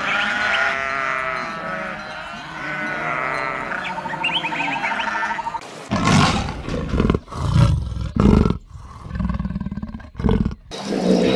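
A flock of sheep bleating, many voices overlapping. About six seconds in it gives way to a big cat's rough growling roars, in several separate bursts.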